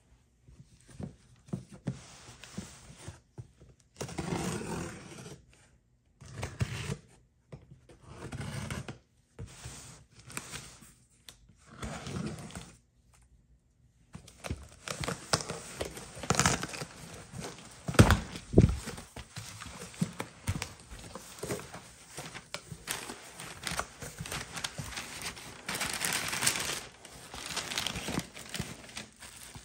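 Packing tape being torn off a cardboard box in a series of short strokes. Then the box flaps are opened and plastic wrapping and packing paper rustle and crinkle as a plastic-wrapped handbag is lifted out, with a couple of dull thumps about halfway through.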